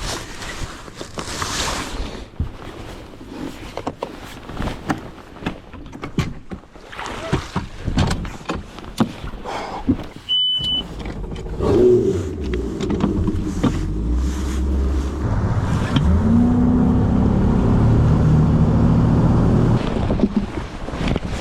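Scattered knocks and clicks, a short high beep, then a boat's outboard motor starting and running, its pitch rising as it is throttled up.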